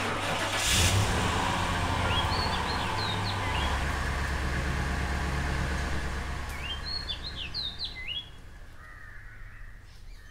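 Birds chirping in short, quick, downward-sweeping calls, in two bouts, over a steady low hum that fades out about eight seconds in.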